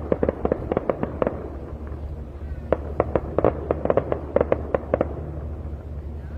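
Fireworks display going off: rapid clusters of sharp pops and bangs, a burst in the first second or so, a short lull, then a longer run from about three to five seconds in, over a steady low hum.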